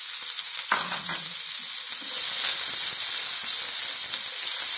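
Chopped onion sizzling in hot mustard oil with cumin seeds and a dried red chilli in a non-stick wok, stirred with a spatula. The sizzle grows louder about two seconds in.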